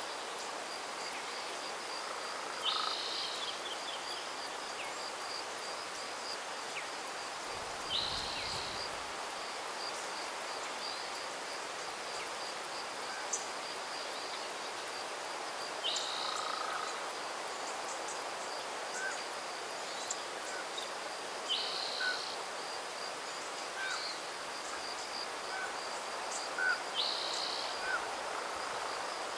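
Outdoor spring ambience: an insect keeps up a steady, high, pulsing trill while a bird repeats a short call about every five seconds, with a few fainter chirps over a soft steady hiss of breeze.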